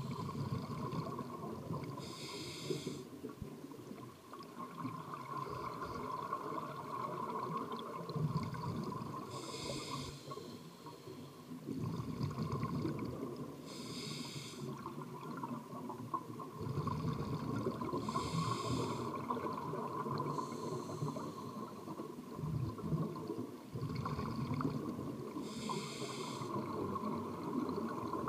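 Scuba diver breathing through a regulator underwater: a short hiss on each inhale and a rumble of exhaust bubbles on each exhale, about five breaths several seconds apart, over a steady high hum.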